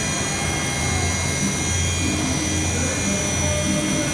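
DMG Mori multi-axis CNC machining center running: a steady machine whine with several high tones over a low hum that swells and fades.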